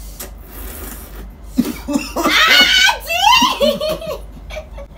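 Coughing and laughing over a mouthful of extra-spicy instant noodles, with a burst of loud, high-pitched laughter from about one and a half to four seconds in.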